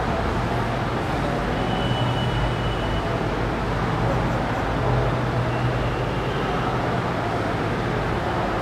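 Steady background noise like road traffic, with a constant low hum and a few faint high tones.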